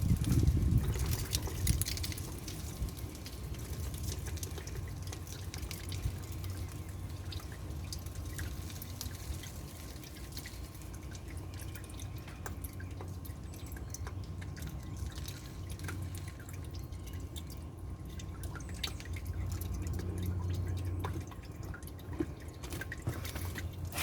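Engine oil dripping and trickling from the 2002 Porsche Boxster S's drain opening into a drain pan during an oil change.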